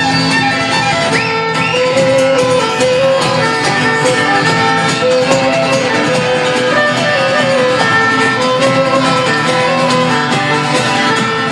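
Live band playing an instrumental passage: a fiddle melody over strummed acoustic guitar.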